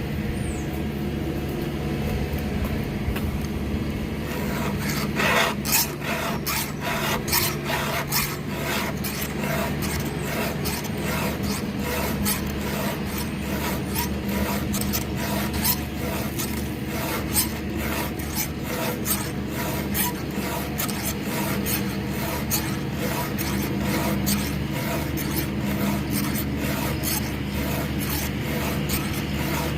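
File strokes across the cutting teeth of a 3/8-pitch chainsaw chain as it is hand-sharpened: repeated rasping strokes, roughly one to two a second, beginning about five seconds in, over a steady low hum.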